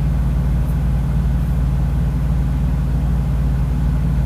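Semi truck's engine idling: a steady, low, even hum.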